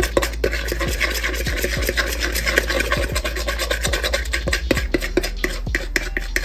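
Metal spoon stirring and scraping quickly against the side and bottom of a mixing bowl, many short scrapes a second, as powdered colouring is worked into a wet egg-and-oil mix.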